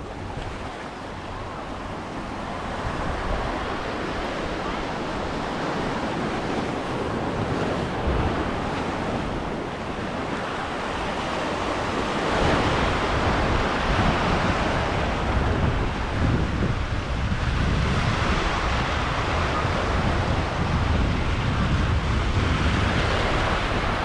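Small surf breaking and washing over a rocky shoreline, with wind buffeting the microphone. The wash and rumble grow louder about halfway through.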